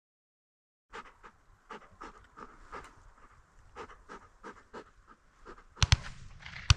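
Retrieving dog panting rapidly, about three breaths a second, after a brief dropout to silence. A few sharp, loud clicks come near the end.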